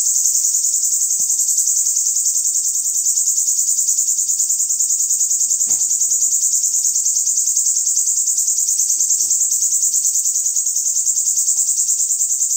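Caged bananaquit (sibite) singing one unbroken, fast-pulsing high trill: the drawn-out 'alonga' song style.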